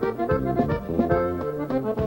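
Norteño band playing an instrumental passage between sung verses: an accordion carries the melody over a rhythmic strummed string accompaniment and bass.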